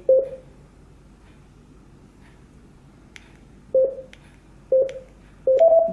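Short electronic beeps from a Griffin iTrip Clip Bluetooth audio adapter: one just after the start, then three more in the last two seconds, the last stepping up in pitch. These are the adapter's tones as its volume is raised toward maximum. Faint clicks fall between them.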